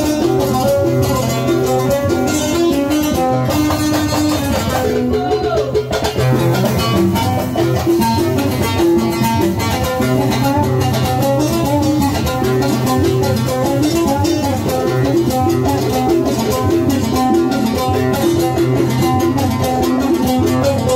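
Live Yemeni wedding music playing through loudspeakers: an instrumental passage with a fast, busy melody over a steady bass and no singing.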